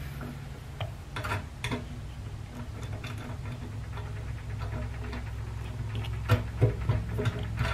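Scattered light clicks and taps from handling a threaded rod and wiring at a fuel-pump sending-unit plate, coming more often near the end, over a steady low hum.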